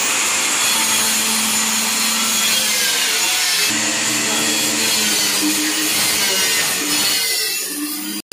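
Handheld electric hand cutter with a small circular blade running at full speed and sawing along a curved line through a plywood top: a loud, steady whine mixed with dense sawing noise. It cuts off abruptly near the end.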